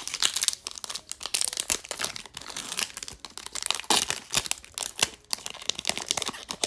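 Foil wrapper of a Topps baseball card pack being torn open and peeled back by hand, crinkling and crackling irregularly.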